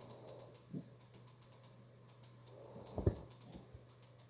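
Faint clicking and rustling as a small dog squirms and rolls over on a fabric couch, with a soft thump about three seconds in.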